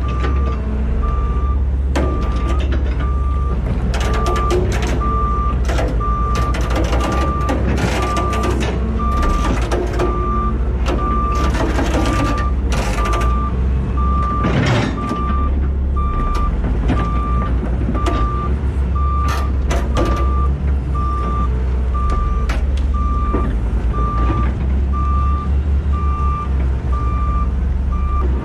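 Truck's reversing alarm beeping steadily, about one and a half beeps a second, over a heavy engine's low rumble. Bursts of rattling and clatter come between about 4 and 14 seconds in.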